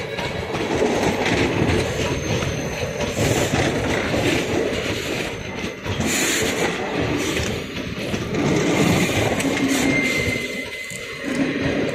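Coaches of an Indian Railways passenger express rolling past at close range: a steady rumble and clatter of steel wheels on the rails, with a brief thin wheel squeal about ten seconds in.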